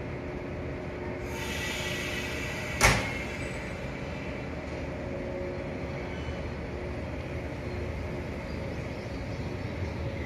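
An electric local train standing at the platform, its equipment humming steadily. About a second in there is a burst of air hiss, and just under three seconds in a sharp thud, typical of the train's doors closing before departure.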